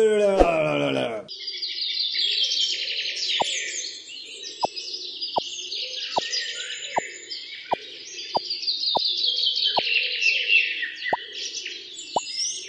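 Many birds chirping without a break, with short plop sound effects every half second or so starting about three seconds in.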